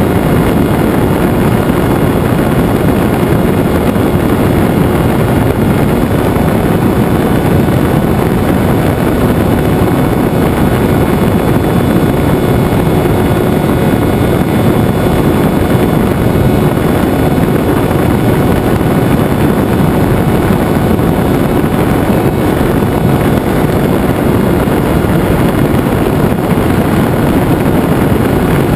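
Onboard sound of a Venturi FPV flying wing in flight: its motor and propeller running steadily, mixed with wind rushing over the airframe and the camera. It stays loud and even, with no change in throttle.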